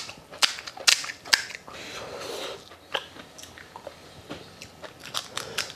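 Sharp clicks and crackles of crisp fuchka (pani puri) shells and a metal spoon as the shells are filled, with chewing. The loudest clicks come in the first second and a half, with a short rustle about two seconds in and another run of clicks near the end.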